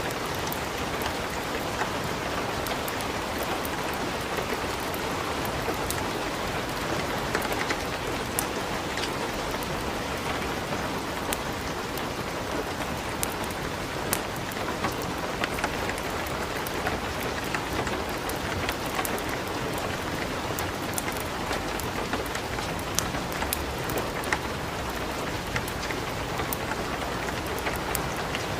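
Light rain falling steadily, with scattered sharp crackles and pops of burning wood in a fireplace.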